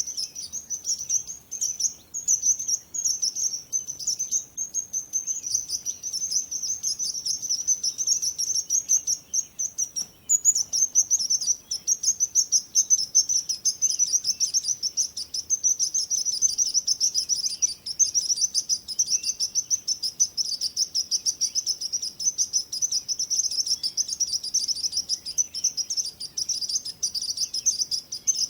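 Many small birds chirping together in a dense, continuous chorus of rapid, high-pitched tweets. The chorus breaks off briefly about ten seconds in, then resumes.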